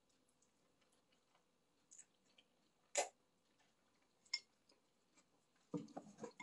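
Faint eating sounds over black-bean noodles: a sharp click about three seconds in and another a little after four, wooden chopsticks against the bowl, then a quick run of soft chewing and mouth noises near the end.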